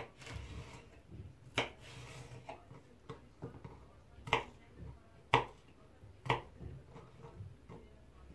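Kitchen knife slicing red peppers on a wooden cutting board: irregular sharp knocks as the blade meets the board, with a softer rasp of the blade through the pepper in the first two seconds.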